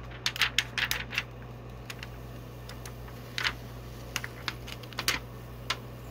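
Clear plastic protective film crackling as it is peeled off a drawing tablet's screen: a quick run of crinkles in the first second or so, then scattered crackles.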